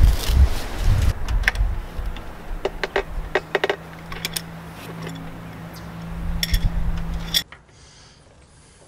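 Wind on the microphone and a run of sharp metal clinks from an adjustable wrench on the brass refrigerant line-set fittings as they are tightened, with a steady low hum under the later clinks. Everything drops to a faint hiss about seven seconds in.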